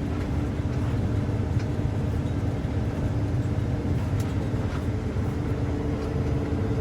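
New Holland combine running steadily while harvesting, heard from inside the cab: a low, even drone with a steady hum.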